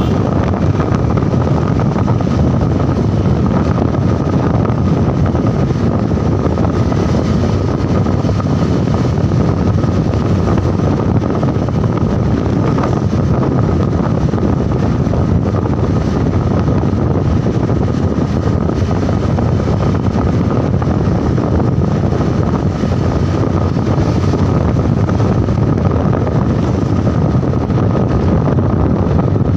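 Steady running noise of a moving vehicle, with wind rushing over the microphone.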